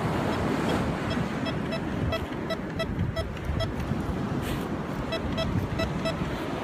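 Bounty Hunter TK4 metal detector beeping in short, identical tones, about three a second with a brief pause partway through: the detector signalling a buried metal target as it is swept over the spot.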